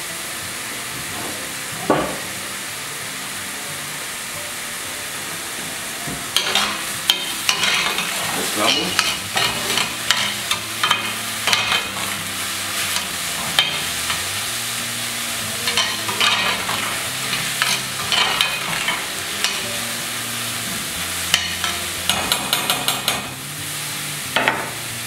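Diced onion and cilantro sizzling steadily in oil in a stainless steel frying pan. There is a single knock about two seconds in, and from about six seconds in a spoon scrapes and clicks against the pan as the mixture is stirred.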